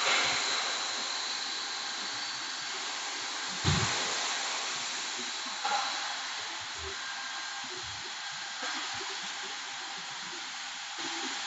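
CNC wood lathe running with a steady hiss, with a soft knock about four seconds in and another about two seconds later.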